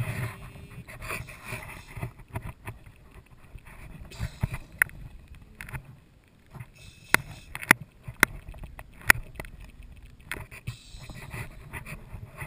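Water sloshing and lapping around a camera held at the surface beside a boat's hull. The wash is strongest at the start and again near the end, and a handful of sharp clicks and knocks sound through the middle.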